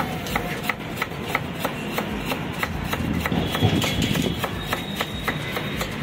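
Hand scrubbing or scraping at a motorcycle engine's cylinder fins: regular clicking strokes about three a second, over a steady low rumble.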